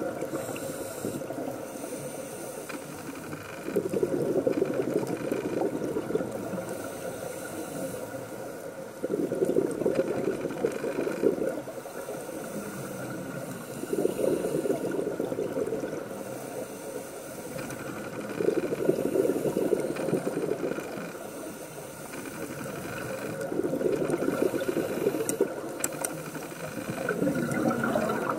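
Scuba diver breathing through a regulator, heard through an underwater camera housing: a rush of exhaled bubbles about every five seconds, with quieter stretches between.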